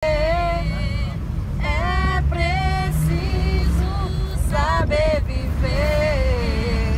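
A woman singing in sustained, gliding phrases, over the steady low rumble of a moving bus.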